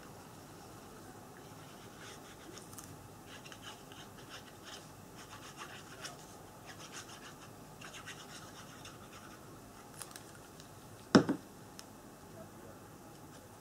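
Faint, scattered scratching and rubbing on paper, then one sharp knock about eleven seconds in as a glue bottle is set down on the cutting mat.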